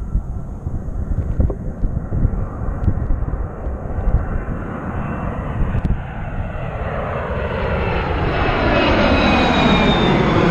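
Twin-engine jet airliner flying low overhead: its jet noise builds through the second half to a loud rush, with a sweeping whine that falls in pitch as it passes over near the end.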